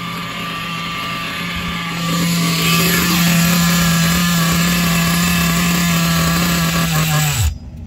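Hong Nor nitro glow engine of an RC buggy idling at a steady pitch, then dying with a quick fall in pitch about seven and a half seconds in as it is shut off.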